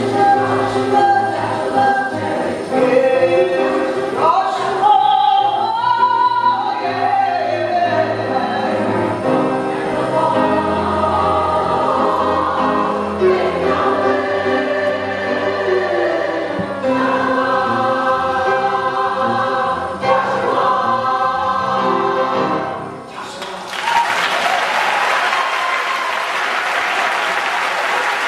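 Women's chorus singing a gospel song with piano accompaniment. The song ends about five seconds before the close and audience applause breaks out.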